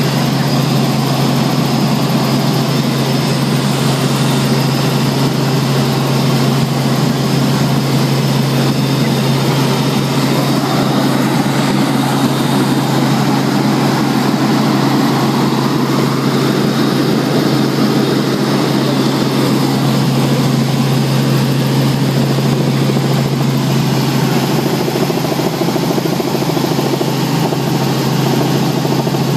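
Helicopter engine and rotor running steadily in flight, heard from inside the cabin: a loud, unchanging drone with a strong low hum.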